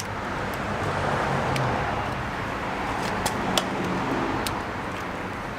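A road vehicle passing by, a steady rushing noise that swells and fades away, with a few small sharp clicks over it.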